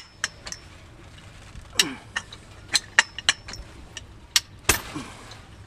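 Hi-Lift farm jack being pumped under load: its steel climbing pins snap against the bar in a series of sharp, irregular metallic clicks, with a short falling creak about two seconds in as the chained palm tree gives.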